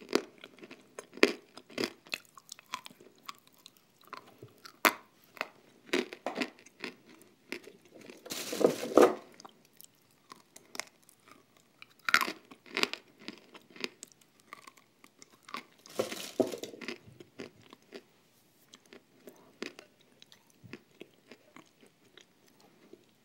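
Close-up chewing and crunching of dry white edible clay: sharp crackling bites, the loudest about 9, 12 and 16 seconds in, with chewing between.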